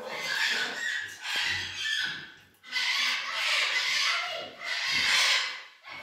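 Blue-and-yellow macaw making a string of harsh, raspy calls, each about a second long, with short gaps between them.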